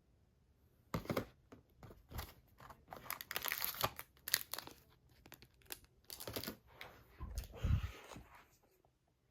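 Irregular tearing and crinkling of product packaging being opened by hand, with a dull thump near the end.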